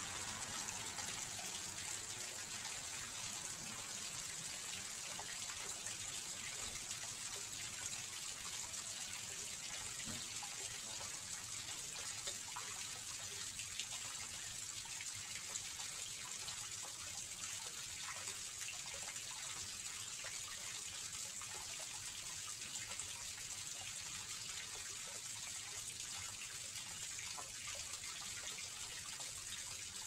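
Small garden fish-pond waterfall: water spilling over a stone ledge into the pond, a steady, unchanging splash.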